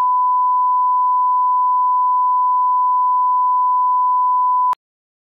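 Colour-bars test tone: one steady, unbroken beep at a single pitch that cuts off suddenly near the end.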